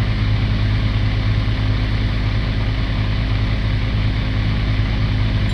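A large engine running at a steady speed, a low even drone with no change in pitch.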